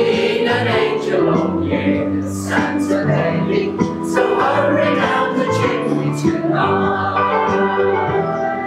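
Mixed amateur choir of mostly older voices singing in unison and harmony, holding long notes, over an organ-like electronic keyboard accompaniment.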